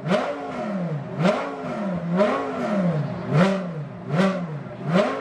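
Audi R8 GT race car's V10 engine blipped repeatedly on the throttle while stationary: about six quick revs, each rising sharply and falling back toward idle, roughly once a second.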